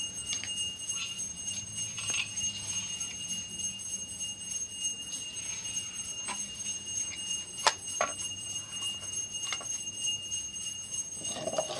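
Scattered light clicks and knocks as amplifier driver boards on aluminium heatsinks are handled and set down on plastic packing, over a steady faint high-pitched tone, with a louder noise at the very end.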